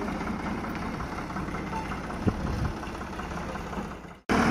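Tractor diesel engine running steadily, with one short click a little over two seconds in; the sound fades and drops out briefly near the end.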